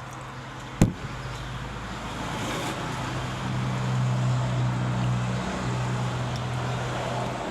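A motor vehicle's engine running close by, a steady low hum that grows louder from about three seconds in, with a sharp knock about a second in.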